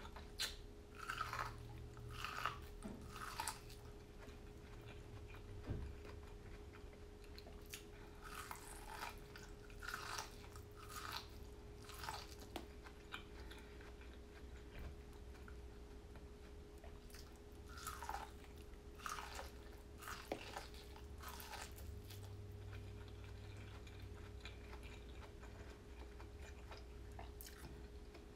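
A person chewing and biting food close to the microphone, with wet mouth sounds coming in clusters separated by quieter pauses, over a steady faint hum.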